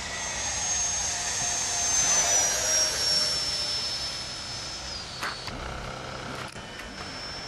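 Funjet Ultra RC jet's 11-blade electric ducted fan on 4S, whining in flight. The high whine drops in pitch and the rush of air swells as the jet passes about two seconds in, then it settles to a steadier, slightly lower whine.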